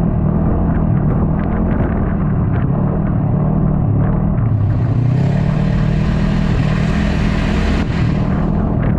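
Yamaha snowmobile engine running under way, its pitch drifting up and down with the throttle over a heavy low rumble. Scattered clicks come through in the first few seconds, and a brighter hiss joins from about halfway through.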